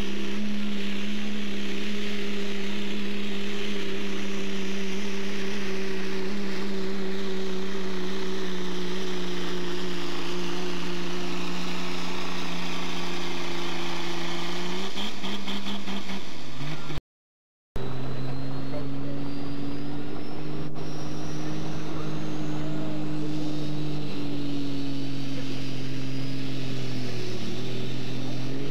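Dodge Ram's Cummins diesel held at full throttle pulling a weight-transfer sled: a steady, loud engine drone that sags slowly in pitch and falls away about fifteen seconds in as the pull ends. After a brief dropout, another pickup's engine drones steadily at a lower pitch, with a faint rising whine.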